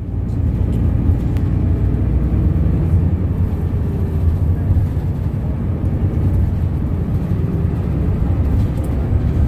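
Steady low engine and road rumble inside the cabin of a moving city bus.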